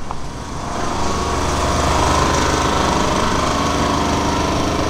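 A machine's motor running steadily, a loud mechanical drone with a hum under it, growing louder over the first second or two and then holding.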